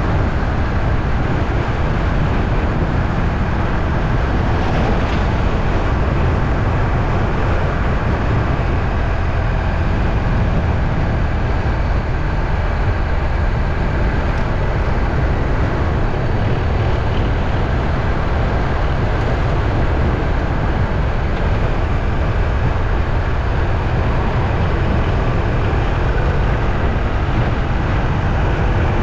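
Steady low rumble of a moving vehicle, even and unbroken throughout.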